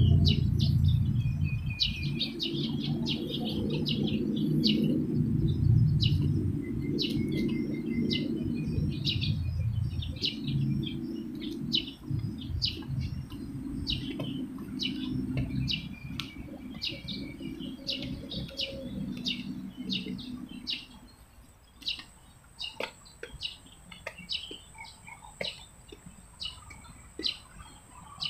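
Small birds chirping in the trees, many short, high, quickly repeated notes, over a low rumble that dies away about two-thirds of the way through.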